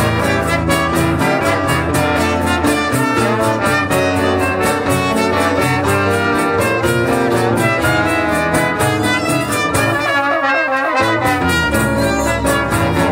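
Live choro ensemble of acoustic guitars with trombone, trumpet and other winds playing a steady-rhythm piece. The low parts drop out for about a second near the end.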